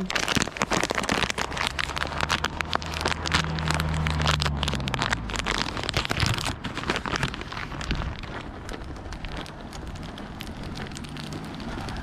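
A plastic snack bag of cashews being handled and crinkled, giving a dense run of sharp crackles that thins out after about seven seconds. Under it a car engine hums past, its pitch dropping as it fades away about five seconds in.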